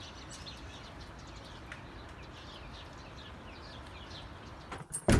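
Small birds chirping, a quick run of short falling chirps several times a second over steady background noise; near the end a sudden loud knock.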